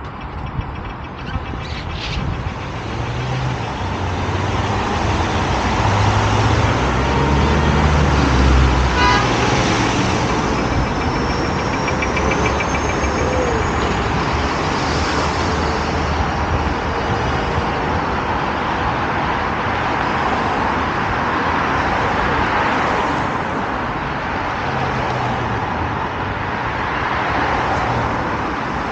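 Road traffic passing on a multi-lane street: car and van engines with tyre noise. A deeper engine rumble swells from about three to ten seconds in, and a faint rising whine follows briefly.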